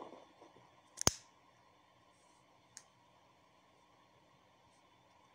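One sharp click about a second in and a faint tick near three seconds, otherwise only faint room tone.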